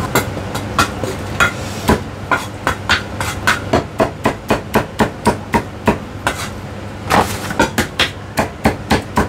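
Chinese cleaver chopping through roast meat and bone on a thick wooden chopping block: a run of sharp chops, a couple of slower ones first, then about three a second, with a short break a little past the middle.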